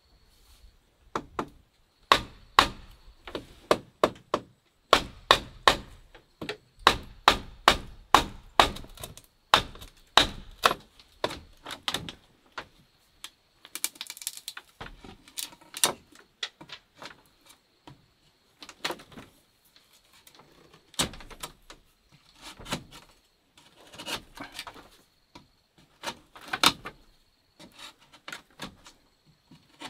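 A long, irregular run of sharp wooden knocks and chops, roughly one or two a second, with a short stretch of rustling about halfway through, typical of a knife or tool striking wood or bamboo.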